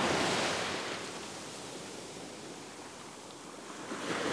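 Surf washing up on a sandy beach, a steady rush of water with no distinct tones. It is strongest at the start, fades through the middle and swells again near the end as the next wave comes in.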